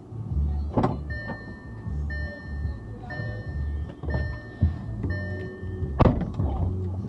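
Music from a car radio, with a beat repeating about once a second, over road noise inside the car's cabin. Two sharp thumps stand out, about a second in and near the end.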